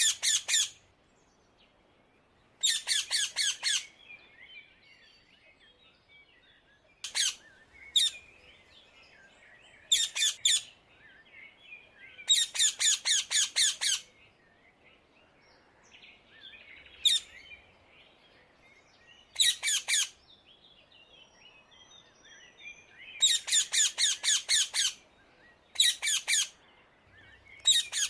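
Rose-ringed parakeets (Indian ringnecks) calling in bursts of rapid, shrill screeching notes. Each burst lasts about a second and comes every few seconds, with fainter bird chirping in between.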